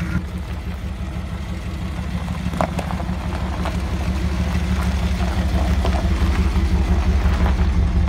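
A 1994 Camaro Z28's V8 engine idling steadily, with a fast, even low pulse that grows a little louder toward the end.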